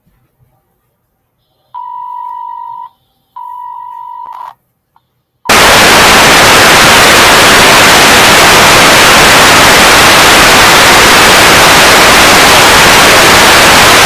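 Two beeps of a steady tone, each a little over a second long, ending a mock emergency alert broadcast. About five and a half seconds in, loud TV static hiss starts suddenly and goes on.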